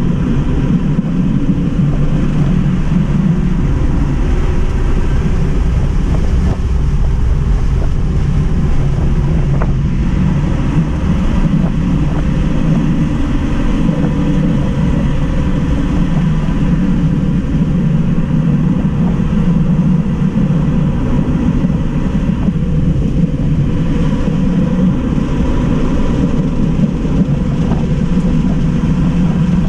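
Cabin noise of a 2018 Tesla Model 3 Mid Range RWD being driven hard around a race track: a loud, steady rumble of tyres and road with wind over the car, and no engine note.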